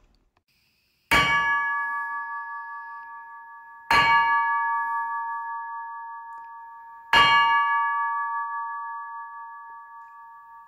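A large brass bell in a yoke stand struck three times with a wooden mallet, about three seconds apart. Each stroke clangs and then rings with a steady, several-pitched tone that fades slowly and is still sounding when the next stroke comes.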